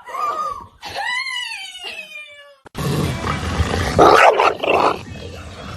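A dog howling in a few drawn-out calls that rise and fall in pitch, the last one sliding down. After a sudden cut, a harsher, noisy stretch follows, with loud rough bursts about four seconds in.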